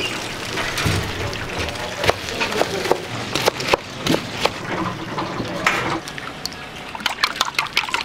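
Restaurant kitchen work: oil bubbling in a deep fryer, then a knife cutting with sharp knocks through a crisp breaded pork cutlet on a plastic cutting board, then chopsticks clicking fast against a steel bowl as eggs are beaten.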